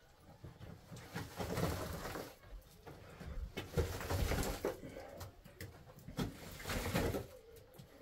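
Wet mud plaster being pressed, slapped and smeared onto a mud-brick wall by hand, in uneven strokes with a few sharper slaps. Birds coo in the background.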